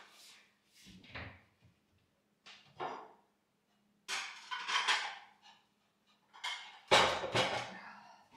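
Plates clattering and clinking as they are put away into a kitchen cupboard, in several separate bursts, the loudest near the end.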